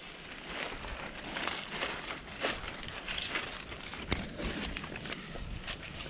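Footsteps and rustling through dry grass and brush on an overgrown path, with irregular crackles of dry leaves and stems; one sharper snap comes about four seconds in.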